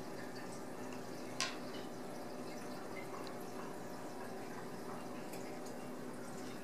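Steady household background hum and hiss with faint scattered ticks, and one sharp click about a second and a half in.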